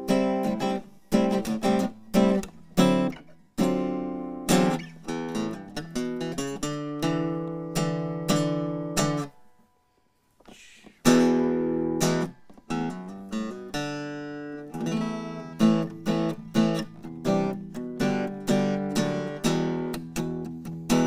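Handmade Bob Deacon big-bodied archtop jazz guitar, played acoustically: chords struck one after another, each ringing out, with a break of about a second and a half near the middle before the playing resumes. The guitar is freshly refretted and on a new set of strings.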